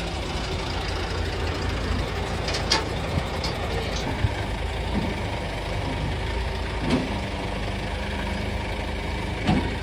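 Tow truck's engine running steadily, with a few short, sharp clanks and knocks now and then.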